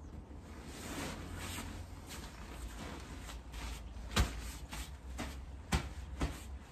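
Deflated inflatable paint booth's fabric rustling and crinkling as it is rolled up and pressed down on a tarp, with three sharp slaps, the loudest about four seconds in.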